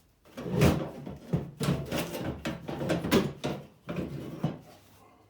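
Power window regulator and motor assembly being wiggled out of a steel Chevy square-body pickup door shell: a run of irregular metal rattles, scrapes and knocks against the sheet metal for about four seconds, the assembly still snagged on its motor wire.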